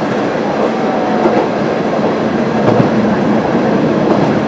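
Kanto Railway KiHa 350 diesel railcar running along the line, heard from inside the cab: a steady running noise of engine and wheels on rail, with a couple of faint clacks as the wheels pass rail joints.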